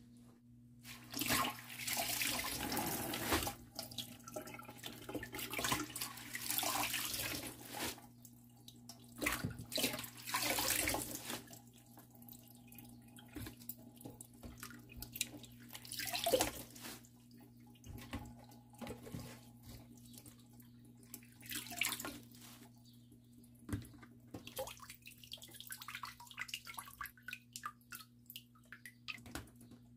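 Kitchen tap water running in spells into a plastic basin in a stainless steel sink as amaranth greens are rinsed, with splashing and sloshing between the spells. A steady low hum sits underneath.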